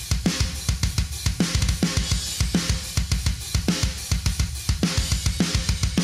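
Solo thrash metal drum track at about 210 beats per minute: rapid, even bass drum strokes under regular snare hits and cymbals.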